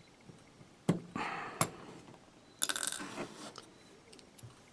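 Handling noises from a pin-tumbler lock and small tools being picked up and moved about: a sharp click about a second in, then two short stretches of scraping and clinking.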